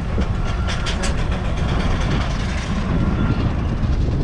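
A 1920 Aveling & Porter 5 NHP steam road roller running with a steady low rumble, with a few sharp knocks about a second in.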